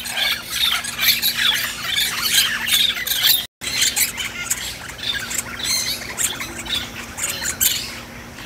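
Many birds squawking and chirping at once, a dense chorus of short overlapping calls over a faint steady low hum; the sound cuts out for an instant about three and a half seconds in.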